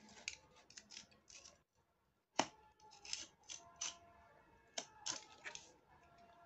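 Utility-knife (box cutter) blade cutting through corrugated cardboard in short, faint crunching strokes, about a dozen of them, the sharpest about two and a half seconds in and again near five seconds.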